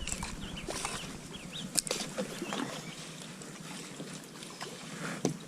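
Small birds chirping in short curved calls, with scattered light clicks and one sharp knock about two seconds in.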